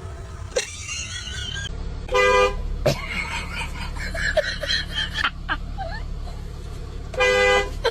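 Car horn honking in two short blasts about five seconds apart, each roughly half a second long, over a steady low rumble of traffic.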